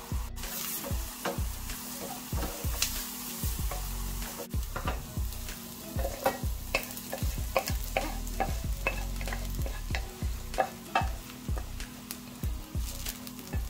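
Shallots and garlic sizzling in butter in a non-stick frying pan. From about four seconds in, a wooden spoon scrapes and knocks against the pan in a run of short clatters as the softened shallots are pushed out of the pan into a stainless-steel jug.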